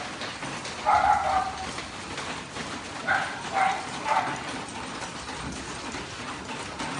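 Dogs barking in a group: one drawn-out bark about a second in, then three short barks in quick succession a couple of seconds later, over the steady hubbub of many dogs moving around.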